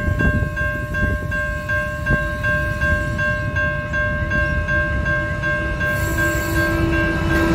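Level crossing warning bells ring in steady even pulses over the rumble of an approaching diesel freight locomotive. A steady lower tone from the train comes in about six seconds in and grows louder toward the end as the locomotive nears the crossing.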